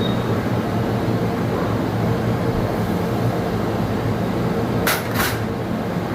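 Steady low mechanical rumble with a hum, and two sharp clicks in quick succession about five seconds in.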